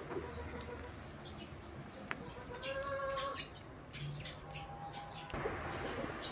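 Outdoor birdsong: small birds chirping over and over, with a longer, lower pitched call from a larger bird about three seconds in and a short clear note a little later.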